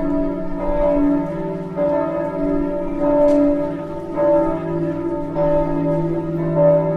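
Film-score music of ringing, bell-like notes over a steady low drone, the notes changing about every half second.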